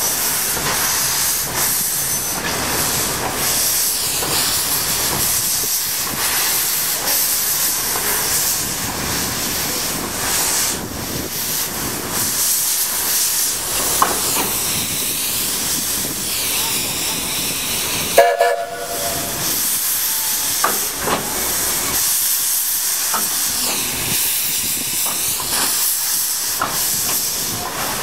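Two coupled Mount Lyell Abt rack steam tank locomotives moving slowly, their open cylinder drain cocks giving a loud, steady hiss of escaping steam. A few sharp clicks are heard, and about eighteen seconds in comes a short whistle toot.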